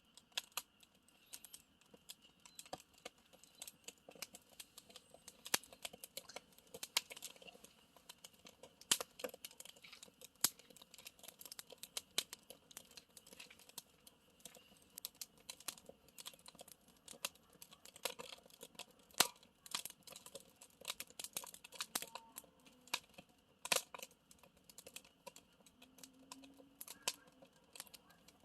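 Campfire crackling: irregular sharp pops and snaps, some clustered and some single, over a soft steady hiss of burning.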